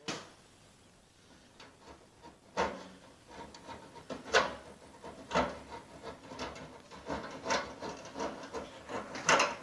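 Irregular knocks and scrapes, roughly one a second, from a roofer working on a metal-tile roof.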